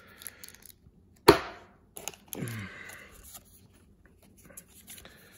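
Handling the contents of a trading-card box: one sharp knock about a second in, the loudest sound, then a short rustle of card stock and plastic wrap and faint shuffling of cardboard dividers.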